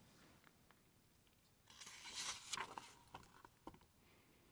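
Faint rustle of a paperback book's page being turned, about two seconds in, followed by a couple of light clicks.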